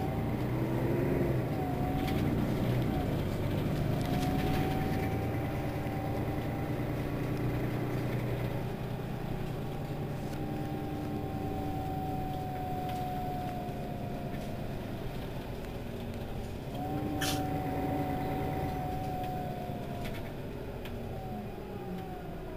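Mercedes-Benz Citaro city bus under way: the engine runs with a whining tone that rises, holds and falls away several times as it moves through its gears. There is a brief sharp click about seventeen seconds in.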